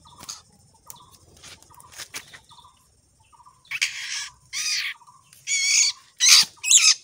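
A white-rumped shama caught in a snare trap gives distress calls as it is taken out by hand: soft short chirps at first, then from about halfway a string of loud harsh calls, roughly two a second and growing louder. Light rustling and clicks of the bamboo trap being handled come through underneath.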